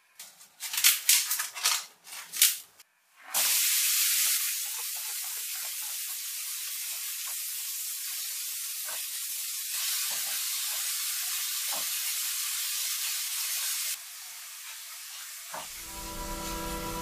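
A few knocks and clatters as a frying pan is set on a gas burner's grate, then minced meat starts sizzling loudly in the hot pan about three seconds in. The sizzling is steady, drops to a softer level about fourteen seconds in, and music comes in near the end.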